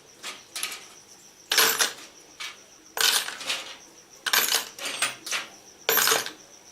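Small metal drill bits and tools clinking and rattling while being handled, in a string of short, irregular metallic bursts.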